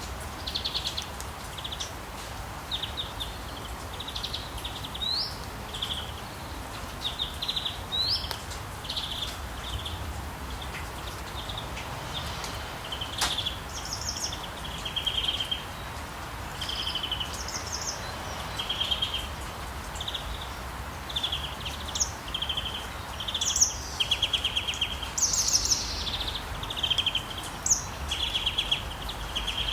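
Small songbirds chirping in short, repeated trilled bursts, busier and higher-pitched in the second half, over a steady hiss of rain and a low background rumble.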